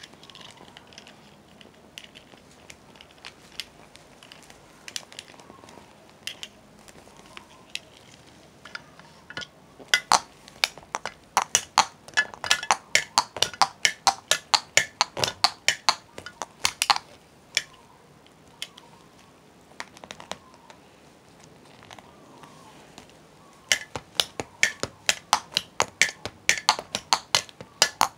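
Amateur drumming: sharp strikes on a hard surface, several a second, in a fast run starting about a third of the way in and another near the end, with scattered taps between.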